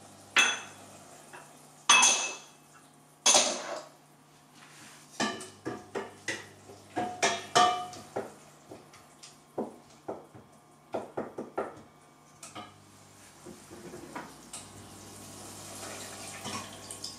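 Kitchen cookware and utensils clanking: three loud ringing clanks about a second and a half apart at the start, then a run of lighter clinks and taps, and softer stirring with a wooden spoon in a saucepan near the end.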